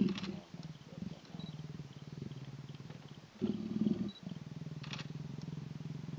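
Mating leopards growling: a low, rasping, pulsing growl that keeps going, with a sharp outburst at the start and a louder snarl about three and a half seconds in.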